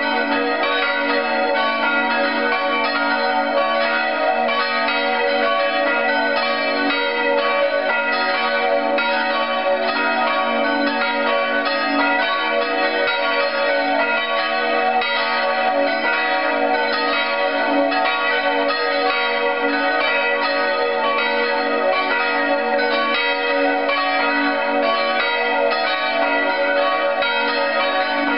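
Full peal of four church bells swinging together, cast by Grassmayr of Innsbruck in 1947 and tuned B♭–D♭–E♭–G♭ (b'–des''–es''–ges''). Their strikes overlap without pause in a dense, steady ringing.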